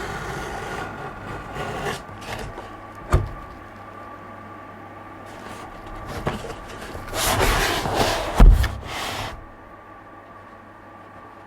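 Unboxing handling noises: a sharp knock about three seconds in, then a couple of seconds of rustling and scraping of packaging around a heavy thump, over a faint steady hum.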